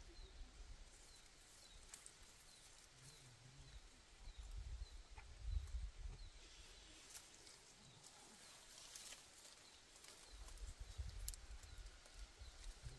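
Quiet outdoor ambience: low rumbling in two stretches, a faint high chirp repeating steadily through the first part, and a few light clicks.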